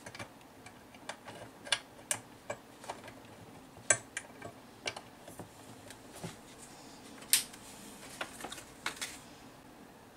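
Sharp clicks from a laptop's touchpad buttons, a dozen or so at uneven intervals, as software menus are clicked through.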